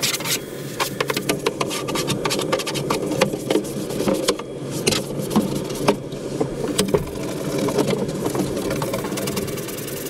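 Small electric motor of a handheld cleaning tool running steadily while the tool works over the plastic floor of a truck's step well, with frequent sharp clicks, scraping and rattling.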